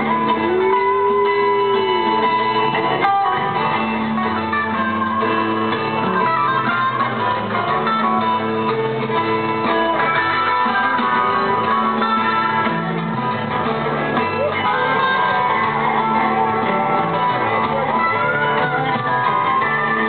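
Live rock band playing a guitar-led passage, heard from the audience at a concert. A note bends up and back down about a second in.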